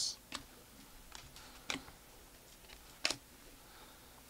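Trading cards handled and flipped through by hand: a few faint, sharp clicks as card edges snap against one another, the loudest about three seconds in.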